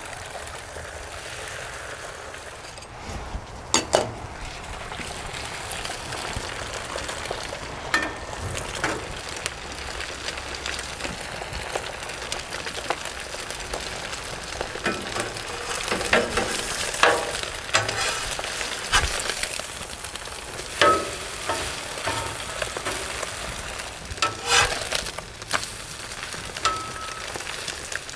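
Eggs frying and sizzling on a Blackstone flat-top gas griddle, with scattered sharp clicks of a metal spatula against the steel cooktop.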